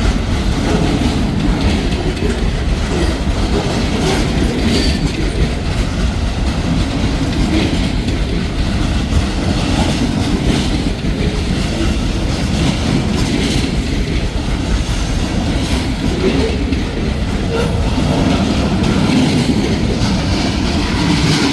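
Escanaba & Lake Superior freight train rolling past: a loud, steady rumble of railcars with wheels clacking over the rail joints.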